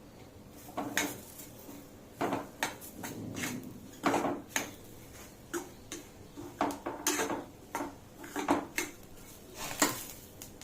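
A cooking spoon clinking and scraping against a pan in irregular strokes while tomato is stirred into roasting semolina.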